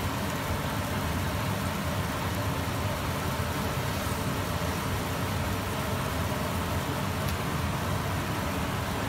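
Steady low rumbling noise of a stovetop in use while a pan of pork ribs braises in cola, with no distinct bubbling or clatter standing out.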